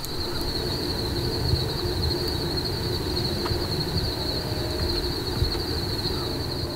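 A steady, high, unbroken insect buzz over a low, uneven rumble.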